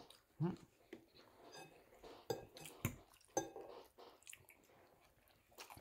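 Cutlery clinking against plates and bowls during a meal, a handful of light, scattered knocks and clinks.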